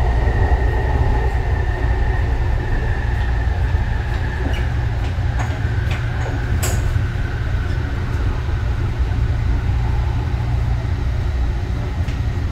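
Cabin noise inside a Yongin EverLine light-rail car running on its steel rails: a steady low rumble with a thin whine that sinks a little in pitch as the train slows into a station. A few sharp clicks come in the middle.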